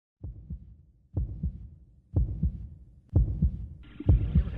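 Heartbeat-like double low thumps, about one pair a second, growing louder, opening a music soundtrack; near the end a fuller layer of higher sound joins in above them.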